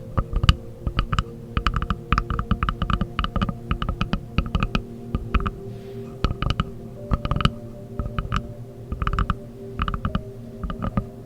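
Quick, irregular runs of tapping on wood, the taps coming in bursts of several a second with brief pauses between, over a few faint steady tones.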